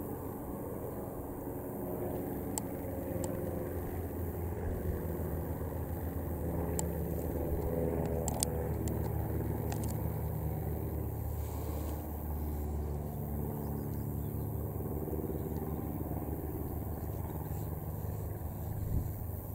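Distant piston-engined biplanes droning steadily in formation, the engine note wavering and swelling a little around the middle before easing off.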